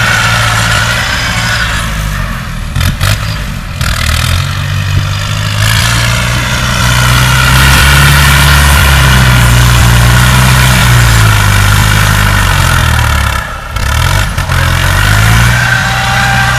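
Diesel engine of heavy earthmoving machinery running and working under load; it rises in pitch about six seconds in, holds there, and eases off briefly twice.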